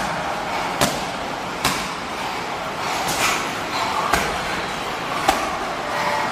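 Strikes landing on Muay Thai pads: sharp smacks at irregular intervals, roughly one a second, some harder than others.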